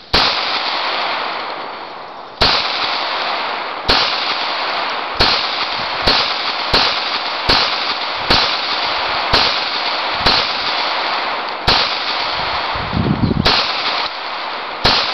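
Gunshots fired one at a time, about thirteen in all at an uneven pace of roughly one every second or two, each sharp crack trailing off in a long echo.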